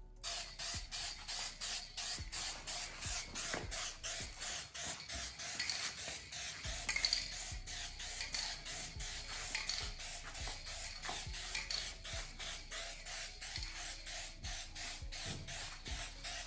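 Aerosol spray-paint can hissing as paint is sprayed, in quick regular pulses of about four a second.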